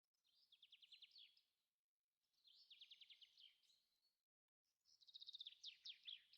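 A small bird singing faintly: three short phrases, each a rapid run of quick downward-sweeping high notes, the last phrase the loudest.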